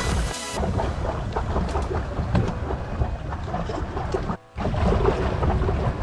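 Wind rumbling on the microphone over water noise from a small pedal boat being paddled, with a brief dropout about four and a half seconds in.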